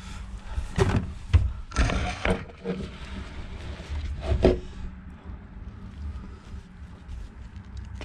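Handling noises while wetting out fiberglass cloth with epoxy: a few knocks and scrapes, one longer scrape about two seconds in, as a plastic epoxy mixing cup is worked against the hull, over a steady low hum.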